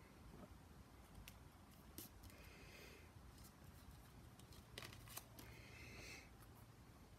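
Near silence with faint handling sounds of card and paper: a few small taps and two brief rustles as cut-out card shapes are pressed down with glue.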